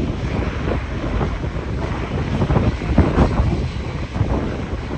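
Gusty wind buffeting the microphone over the rumble of an airliner's engines, louder about three seconds in.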